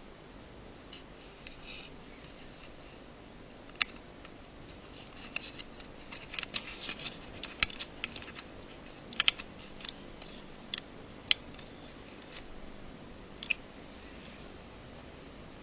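Small, sharp clicks and light scrapes of a small screwdriver and tiny screws being fitted into an iPhone 5's casing. They come in scattered single ticks, with a busy cluster in the middle.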